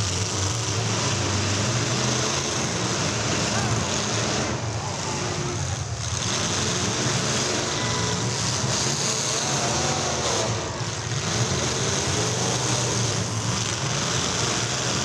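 Demolition derby cars' engines running together.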